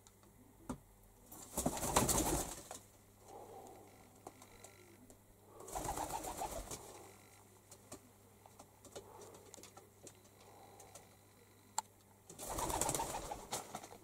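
Pigeons cooing over and over, the low monotonous coo of a male courting a female. Three louder rustles come about two, six and thirteen seconds in.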